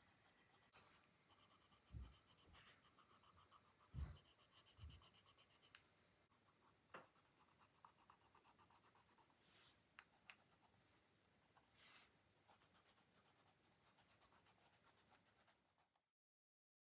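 Faint coloured pencil scratching on sketchbook paper in quick, rhythmic back-and-forth strokes, with a couple of soft low thumps. The scratching stops abruptly near the end.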